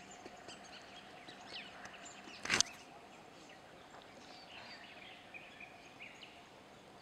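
Riverside ambience: birds chirping at intervals over a low steady hiss and a faint steady hum, with one brief sharp sound about two and a half seconds in.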